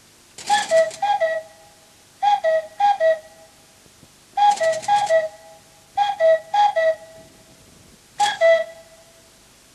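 Cuckoo-clock call: a whistled two-note "cu-ckoo", the second note lower, sounded nine times, mostly in quick pairs about two seconds apart, with a breathy puff at the start of some calls.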